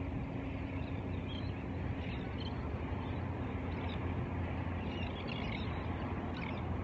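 Steady outdoor background rumble, with a few faint, short bird chirps scattered through it.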